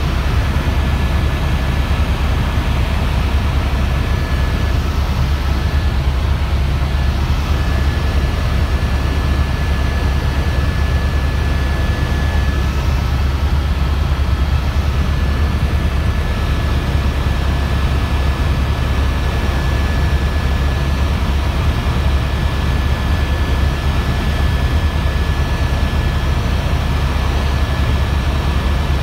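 Tour helicopter in flight, heard from inside the cabin: a loud, steady low drone of rotor and engine, with a thin steady whine on top.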